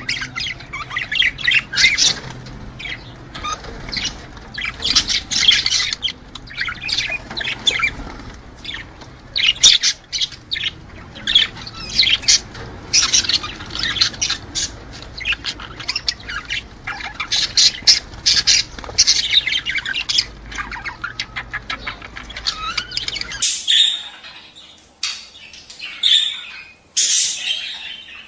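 Budgerigars chattering and warbling in courtship, a continuous run of rapid chirps and squawks. A low background hum under it stops abruptly near the end.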